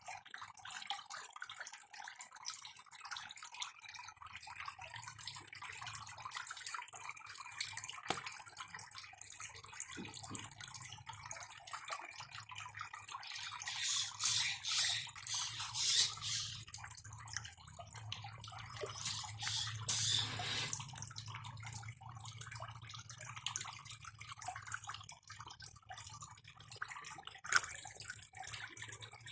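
Water trickling and fizzing, with louder surges about halfway through, over a faint low hum.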